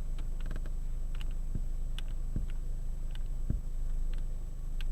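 Low steady hum inside a car, with scattered light clicks and creaks.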